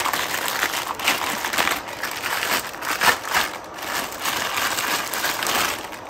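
Packaging crinkling and rustling irregularly as a part of the sander kit is handled and unwrapped.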